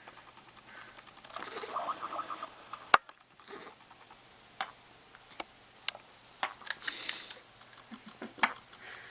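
A run of short, sharp hiccups at uneven spacing, roughly one every half second to second and a half; a sharp click about three seconds in is the loudest sound.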